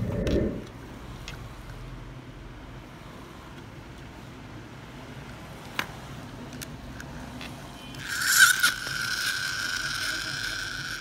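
Faint handling of toy cars with a light click, then, about eight seconds in, a toy monster truck's friction motor whirring with a high, steady whine as its wheels are spun.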